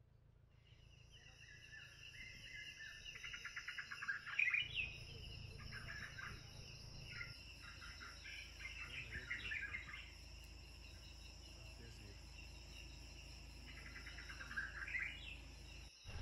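Birds calling in three bouts of rapid chirps and trills over a steady, high insect drone, with a low rumble underneath from about a third of the way in.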